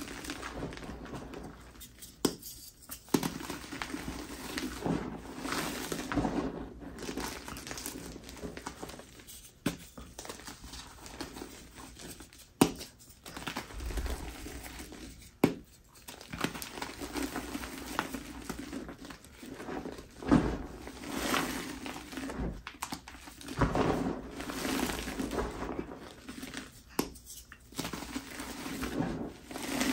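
Hands crushing and crumbling pieces of reformed gym chalk: dry crunching in repeated squeezes with short pauses between them, and a few sharp cracks as chunks snap.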